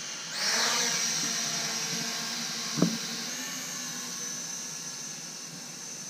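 Asbww GPS quadcopter's motors and propellers whining high and steady as it lifts off, the sound swelling about half a second in, then fading slowly as the drone climbs away. A brief knock sounds a little under three seconds in.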